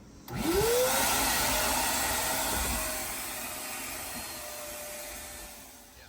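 A vacuum cleaner, likely a wet/dry shop vac, switching on with a quickly rising motor whine and then running with a steady rushing suction noise that eases off after a few seconds.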